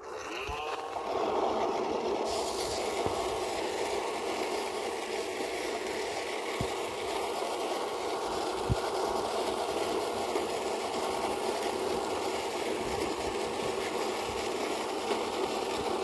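iRobot Roomba robot vacuum's motors spinning up with a rising whine in the first second, then running with a steady whirr as its brushes and wheels work over concrete paving stones, with a couple of faint knocks.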